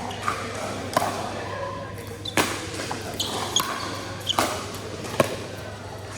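Pickleball rally: paddles striking a plastic pickleball, four sharp hits spaced about one to two seconds apart, with a few short high squeaks in between.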